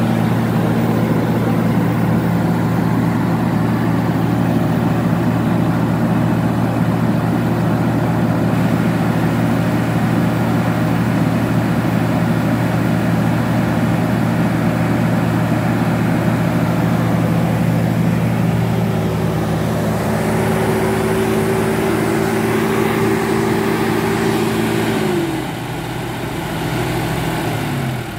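2004 Massey Ferguson 5360 4x4 tractor's diesel engine running steadily at raised revs. Near the end the revs come down, the pitch falling in two steps and the sound getting quieter.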